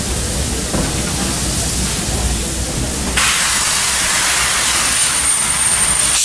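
Steam train carriage rolling along with a steady low rumble; about three seconds in, a loud steam hiss starts suddenly and holds as the locomotive vents steam beside the track, a thin high-pitched tone joining near the end.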